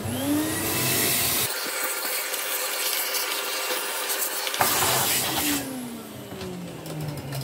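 Vacuum cleaner used to clean out dirt through a crevice tool. Its motor spins up at the start with a rushing hiss of sucked air, then is switched off about five and a half seconds in and winds down in falling pitch.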